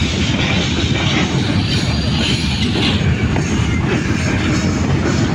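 Freight train of hopper wagons rolling past, a steady loud rumble of steel wheels on the rails with a rattling hiss above it.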